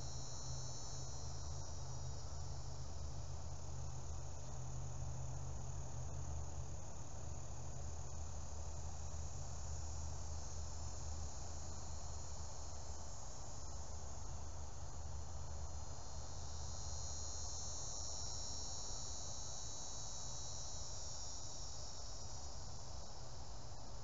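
Insect chorus, a continuous high-pitched trilling, strongest at the start and again from about two-thirds of the way through, over a steady low hum.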